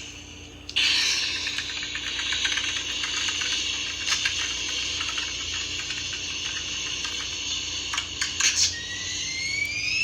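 Toy Story rocket toy playing its electronic rocket-power sound effect: a rushing hiss of thrust starts suddenly about a second in and runs on, with a few clicks, and a rising whistle near the end.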